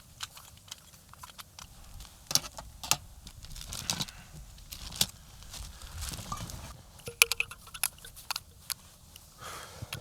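Irregular crunches, clicks and rustling of camp cooking gear being handled and packed up in the snow.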